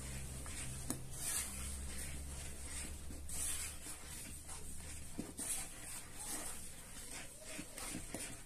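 Wooden spoon stirring thick cake batter in a plastic bowl, wet swishing and scraping strokes about once a second. A low steady hum runs underneath and stops about five seconds in.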